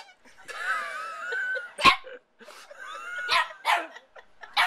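Small dog whining with a wavering pitch, then barking sharply about four times.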